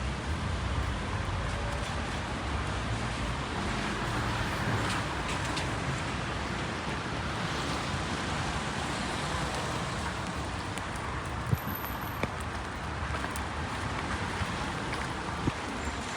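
Steady rain on a city street with car traffic passing on the wet road; two sharp clicks stand out, one past the middle and one near the end.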